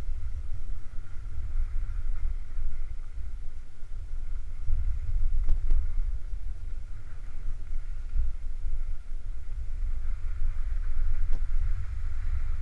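Wind noise on the microphone of a skier's camera moving downhill: a low rumble that swells and fades unevenly.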